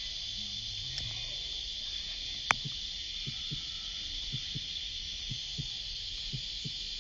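Steady high buzzing chorus of summer cicadas. Soft low thumps come now and then through the second half, often in pairs, and there is a single sharp click about two and a half seconds in.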